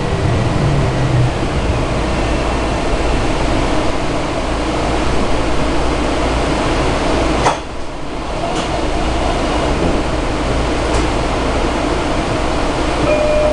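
Steady rushing noise inside a Metro-North electric commuter train as it draws to a stop at a station platform, with the car's ventilation running. A sharp click comes about seven and a half seconds in, followed by a short dip in the noise.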